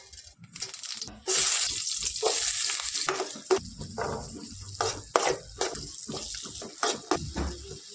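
Diced potatoes and tomatoes frying in hot oil in a kadhai, sizzling loudly from about a second in. A spatula stirs them, scraping the pan in repeated short strokes.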